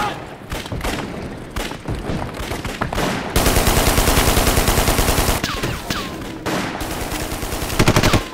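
Battle gunfire: scattered single shots, then a sustained machine-gun burst about three and a half seconds in that lasts roughly two seconds. Several falling bullet whines follow, and another short rapid burst comes near the end.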